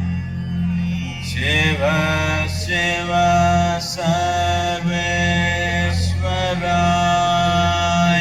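Devotional Shiva chant: a male voice sings long, drawn-out syllables that change every second or two, over a steady low drone.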